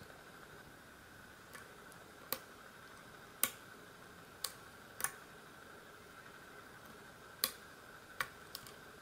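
Sharp, irregular metal clicks from a pick and tension wrench working the pins of a euro profile cylinder lock, about eight in all, as pins set and the plug turns into a deep false set.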